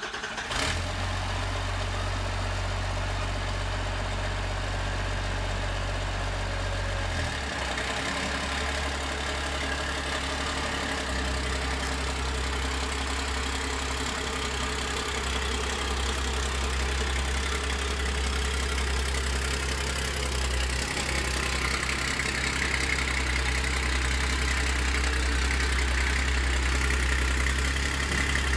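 12-valve Cummins 5.9-litre inline-six diesel, swapped into a Ford F-450, running at idle while the truck creeps forward under its own power. The low engine note shifts about seven seconds in, and a higher whine grows louder over the last few seconds.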